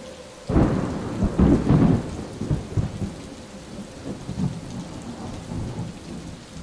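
A clap of thunder breaking about half a second in, rumbling and crackling for a couple of seconds and dying away, over steady rain.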